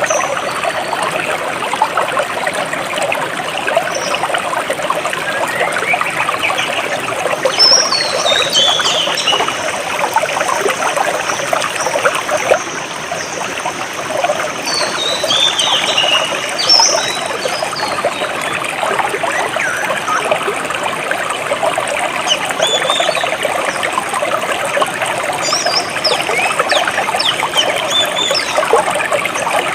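A jungle stream trickling and babbling steadily over rocks. A bird chirps over it in short runs of falling high notes, about four times.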